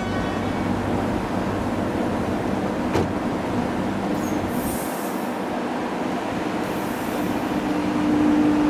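Metro electric train running at a suburban railway station: a steady rumble, with one click about three seconds in and a steady motor hum that comes in near the end.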